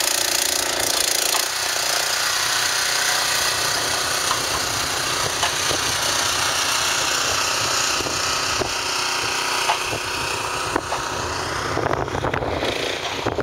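Farm tractor engine running steadily while working a post pounder, with a few sharp knocks of wooden posts.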